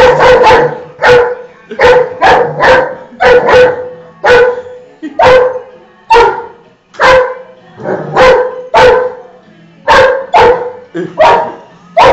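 German Shepherd barking loudly over and over, about twenty sharp barks at an uneven pace of one or two a second.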